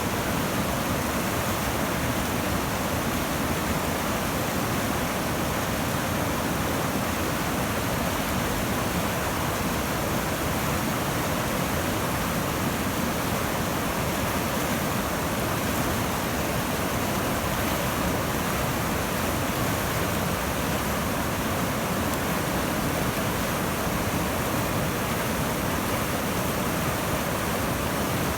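River rapids in spring snowmelt flood, a steady loud rush of churning water with no break or change.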